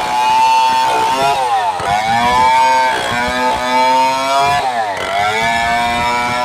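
STIHL 070 two-stroke chainsaw running at high revs while cutting wood. Its engine pitch drops and climbs back twice, about a second in and again near five seconds, as the chain is loaded in the cut.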